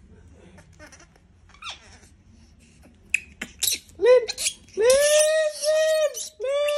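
Baby monkey screaming at being disturbed: a few sharp squeaks about three seconds in, then loud screams held at one pitch, several in a row, the longest lasting over a second.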